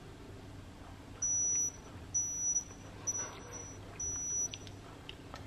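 Digital clinical thermometer beeping four times, one high-pitched beep about every second, as it starts up before a reading.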